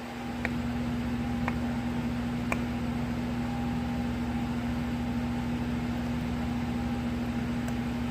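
Steady low hum with an even hiss that swells in over the first half second, with three faint ticks about a second apart in the first few seconds.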